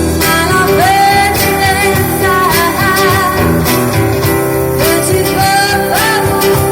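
A small acoustic band playing live: a woman sings a melody with vibrato, coming in under a second in, over strummed acoustic guitars and a steady drum beat.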